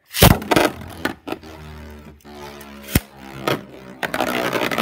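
Cho-Z Achilles Beyblade launched into a plastic Beyblade stadium: a sharp clatter as it leaves the launcher and lands, a few knocks, then a steady whirring hum as it spins. About four seconds in it turns into a louder, rasping rattle.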